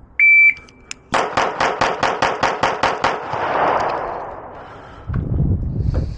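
A shot timer gives one steady high beep, then a Beretta pistol fires a string of ten rapid shots, about five a second, that the timer clocks at 2.86 seconds. A low rumble follows near the end.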